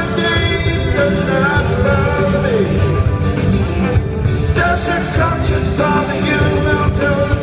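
Live rock band playing loudly: electric guitars over drums and bass, with a lead guitar line bending in pitch.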